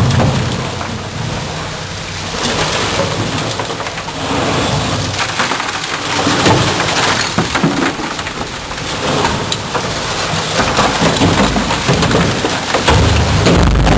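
High-pressure water jet blasting hardened concrete inside a ready-mix mixer drum: a dense, loud spray hiss full of sharp cracks and knocks as chunks of dead concrete break away. A low rumble builds near the end.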